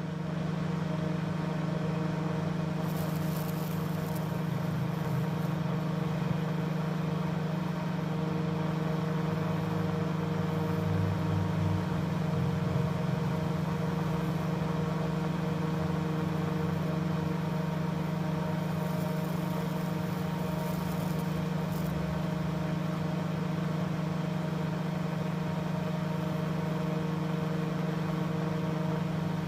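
Fractal (Lichtenberg) wood burner at 10,000 volts running: a loud steady electrical hum with a fizzing crackle as arcs burn branching tracks into walnut. The crackle flares up a few seconds in and again about two-thirds of the way through.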